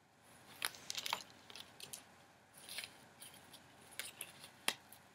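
Handling noise of a lace button-up shirt being moved and folded: scattered short rustles of fabric with a few sharp clicks.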